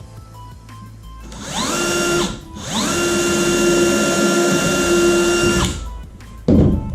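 Power drill spinning up and running at a steady whine in two runs, the second about three seconds long, winding down near the end, as it drives into wood. A short knock follows.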